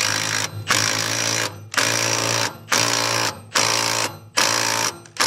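Impact wrench run in about six short bursts, each under a second, driving a 3/4-inch (19 mm) nut down on a rotary mower's slip clutch.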